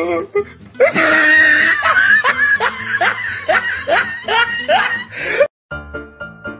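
Loud laughter, a quick run of repeated 'ha's that stops abruptly near the end, followed by music.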